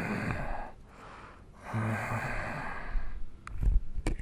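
A man's exaggerated breathy vocal sounds: two long airy sighs, each opening with a short voiced note. A few sharp clicks and knocks follow near the end.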